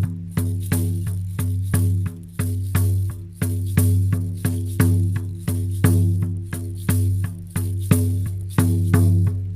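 Shamanic frame drum beaten in a steady, even rhythm of about two and a half to three strikes a second, each stroke a deep booming tone that rings on and fades before the next.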